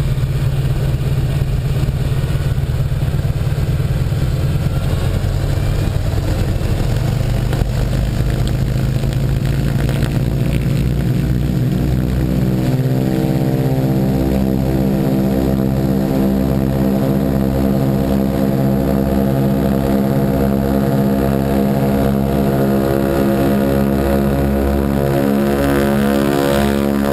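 Ford Trimotor's exposed nine-cylinder Pratt & Whitney Wasp radial engine and propeller running at high power on the takeoff roll, close up. A rough rumble in the first half settles, about halfway through, into a steady, even drone.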